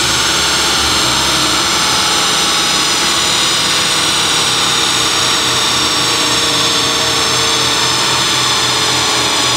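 Steady, even drone of a Peugeot 306 running on chassis dyno rollers together with the large cooling fan, holding one pitch with no revving.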